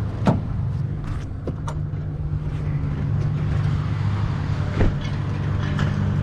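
Vehicle engine idling with a steady low hum, with a few short clicks or knocks, one just after the start and another near five seconds.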